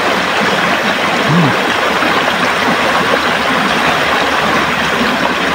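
River water rushing, a steady, even noise with no let-up.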